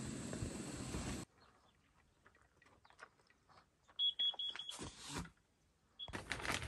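A quick run of four short, high electronic beeps, then one more beep a moment later, over a quiet background with faint clicks and rustles. A steady hiss fills the first second and returns near the end.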